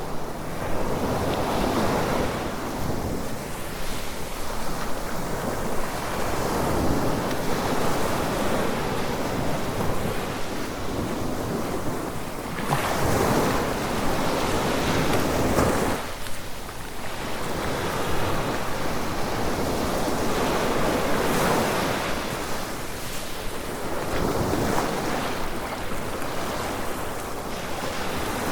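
Surf washing onto a sandy beach, swelling and ebbing every five or six seconds, with some wind.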